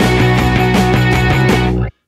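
Background rock music with guitar and a steady fast beat, which cuts off suddenly near the end.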